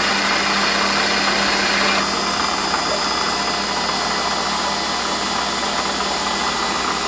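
Metalworking lathe running steadily while a 7 mm twist drill in the tailstock chuck is fed gently into the spinning workpiece. The cutting noise eases about two seconds in, while the motor hum continues.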